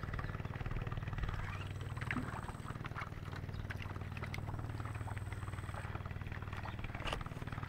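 Boat engine running steadily with an even low hum, and a short click about seven seconds in.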